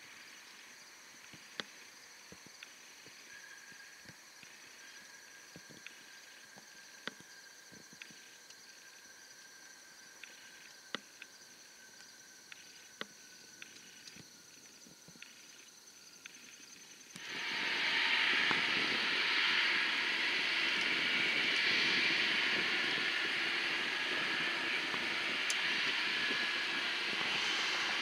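Faint outdoor background with scattered light ticks. About seventeen seconds in it cuts suddenly to the loud, steady running of a U.S. Air Force RC-135's four CFM F108 turbofan jet engines as it rolls along the runway.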